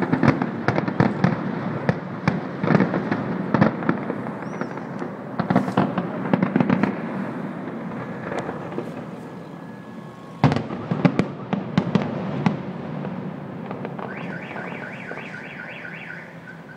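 Aerial fireworks bursting in rapid volleys of sharp bangs and crackle, easing off briefly before a fresh loud volley about ten seconds in, then thinning out. Near the end a high-pitched electronic chirp repeats about three times a second.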